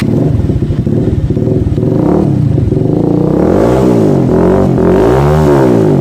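Bajaj Avenger's single-cylinder engine running through an aftermarket double-barrel silencer, loud, idling with a fast popping beat. From about two seconds in the throttle is blipped several times, the pitch rising and falling with each rev.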